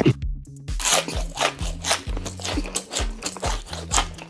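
Crunchy bite-and-chew sound effects of corn on the cob being eaten, crisp strokes coming quickly, about four a second. Light background music with a steady bass line runs underneath.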